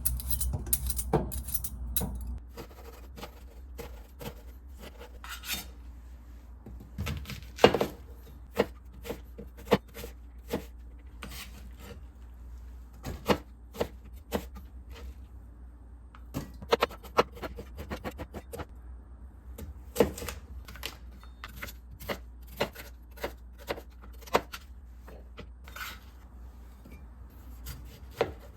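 Irregular clicks and knocks of kitchen utensils and dishes being handled while cooking, with one louder knock about eight seconds in, over a low steady hum.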